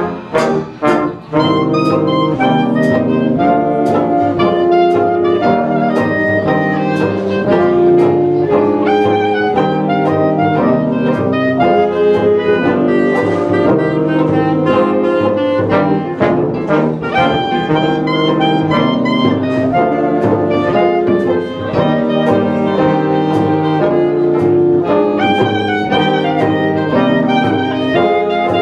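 A jazz orchestra of trumpets, trombone, saxophones, tuba and drums playing a 1920s-style tune together. A few short, clipped chords come in the first second or so, then the full band plays on steadily.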